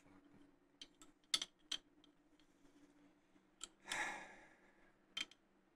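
Faint clicks and taps of a glass soda bottle and its cap being handled, with a short hiss about four seconds in.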